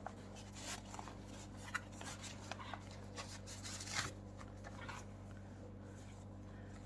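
Faint handling noises: soft clicks and light rustles as unboxed items and a carrying pouch are moved about, over a steady low electrical hum.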